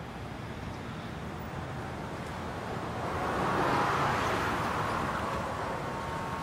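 A car passing on a street at night, its tyre and engine noise swelling to a peak about four seconds in and then fading, over a steady traffic hum.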